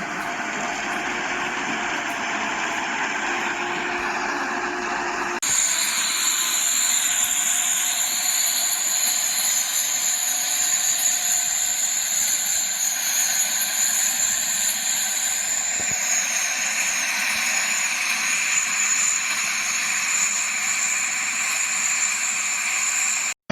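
Four-row corn harvester running steadily. About five seconds in the sound changes abruptly, gets slightly louder and carries a steady high whine.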